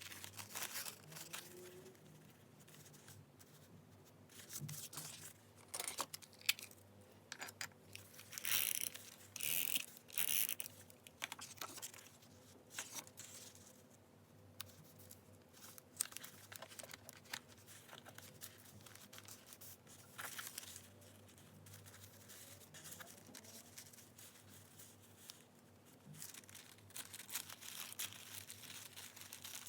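Close-up paper sounds of journal decorating: sheets of paper and stickers being handled, rustled and torn, in irregular short bursts with quiet gaps, loudest about nine to ten seconds in.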